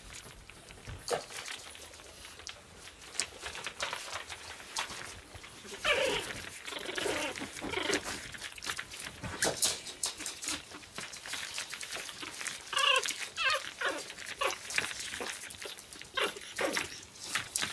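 Pug puppies whining and yipping in short, high squeaky calls, in bouts about six seconds in, around thirteen seconds and again near the end. Between the calls there are many small clicks and crinkles of paws on newspaper.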